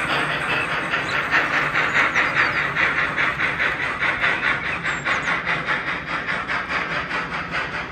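HO scale model steam freight train running by: a rhythmic steam-chuffing hiss at about four beats a second, with the wagons' wheels clicking along the track.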